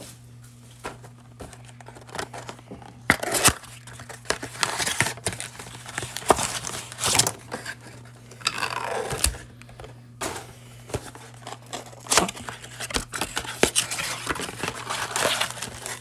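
Sealed boxes of Panini Prestige football cards being torn open by hand: wrapping and cardboard crinkling and tearing in irregular bursts, with foil card packs rustling and clicking as they are pulled out and stacked.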